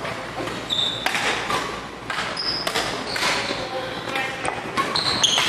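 Badminton doubles rally: rackets striking the shuttlecock with sharp cracks, and court shoes squeaking briefly on the floor, the squeaks coming more often near the end.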